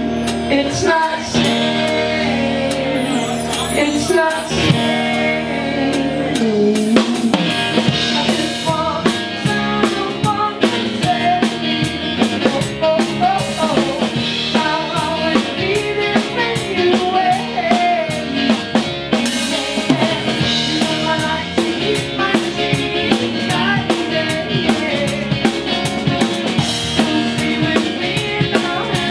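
Live band playing a song, with the drum kit's bass drum and snare beating a steady rhythm under sustained instrument lines.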